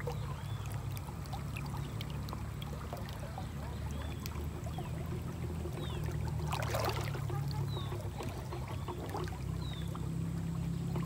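Shallow, low-flowing river water running steadily, a constant low rush, with a brief louder swish of noise about halfway through.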